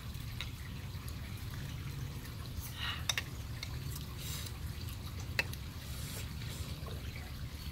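A few light clicks of a porcelain spoon against a ceramic bowl of chè as it is scooped and stirred, with soft liquid sounds, over a steady low background rumble.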